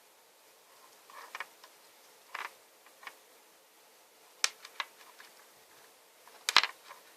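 Hands handling a phone and its packaging: a few soft rustles, then sharp clicks, one about halfway through and a louder cluster near the end.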